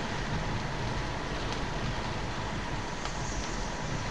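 Steady road and engine noise of a moving car, heard inside the cabin.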